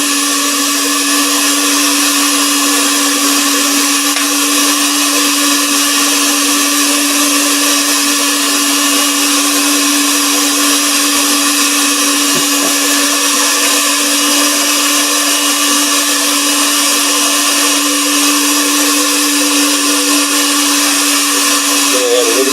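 Electric mixer running steadily at one speed with a constant-pitched whirr, blending yellow colouring into buttercream icing.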